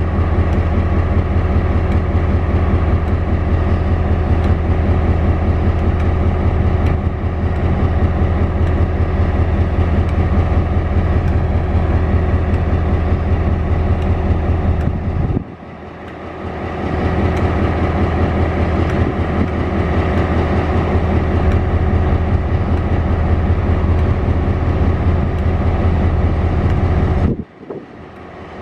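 Diesel locomotive idling close by: a steady low engine drone with an even hum of overtones. It drops away sharply for a moment about halfway through and again near the end.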